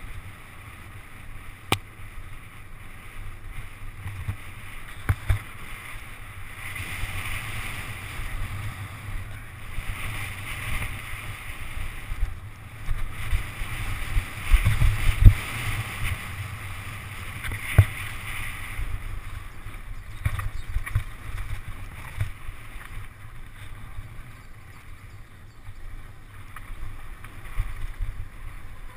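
Mountain bike rolling fast down a gravel track: a steady rush of wind over the microphone and tyres on loose gravel, with scattered knocks and rattles from bumps, the loudest cluster about halfway through.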